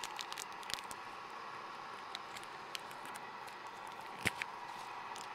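Electric camp kettle heating water close to the boil: a steady hiss with scattered small ticks and pops, and one louder click about four seconds in.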